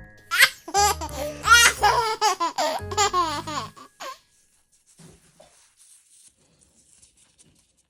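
High-pitched laughter in quick rising and falling peals for about four seconds, then it stops.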